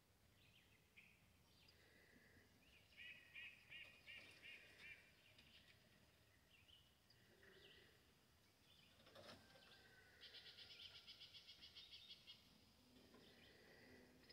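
Faint, distant birdsong over near silence: a run of quick repeated chirps early on, then a faster trill later. A single sharp click comes just after the middle.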